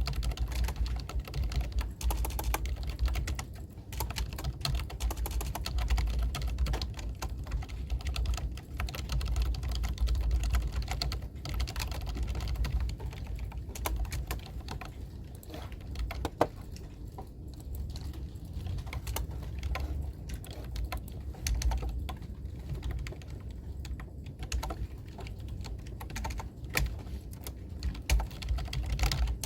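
Computer keyboard typing: a continuous run of rapid, irregular keystroke clicks, over a steady low rumble.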